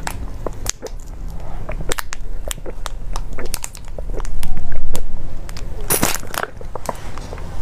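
Close-miked sucking of a drink from the mouth of a soft, thin plastic tube, the flattened plastic crinkling and crackling with many sharp clicks; the loudest stretch comes about halfway through.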